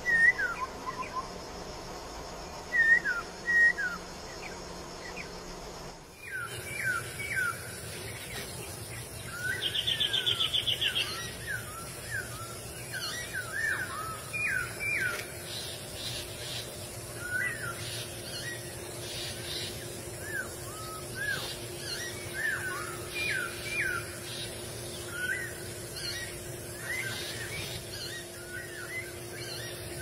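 Black-throated laughingthrush singing: a string of short whistled notes that hook up and down, a few at first and then coming about once or twice a second. About ten seconds in there is a brief, rapid, higher rattle.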